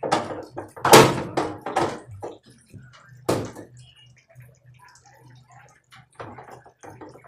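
Metal clattering and knocks from tools and washing-machine parts handled while the screws under the drum are undone with a 10 mm socket. The loudest clatter comes in the first two seconds, with another sharp knock a little after three seconds, then lighter clicks over a steady low hum.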